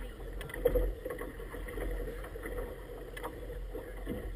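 Small inflatable boat running through choppy water: water washing and splashing against the inflatable tube, over a low steady rumble of wind on the microphone. A few short slaps and knocks, the loudest just under a second in.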